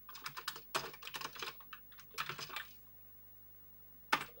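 Commodore 64 keyboard being typed on: a quick run of key clicks as the load command is entered, a pause, then one louder single key press about four seconds in, the Return key that starts the load.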